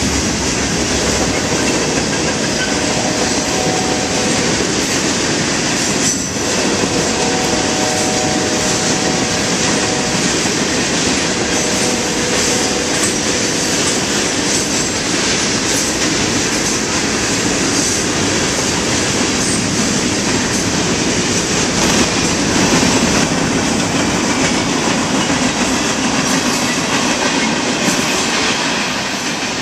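Freight train of tank cars and covered hopper cars rolling past close by: a steady, loud rolling noise of steel wheels on rail. Faint squealing tones run from about four to thirteen seconds in.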